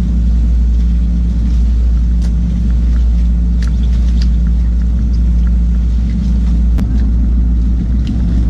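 Fishing boat's engine running steadily with a loud low rumble, with a few scattered light clicks over it.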